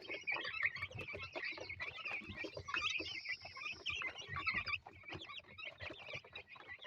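A flock of two-week-old chicks peeping, many short high calls overlapping without pause.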